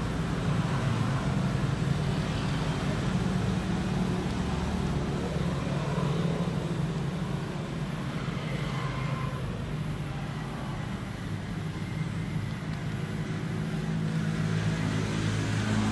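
A steady low engine drone runs throughout, with a faint haze of noise above it.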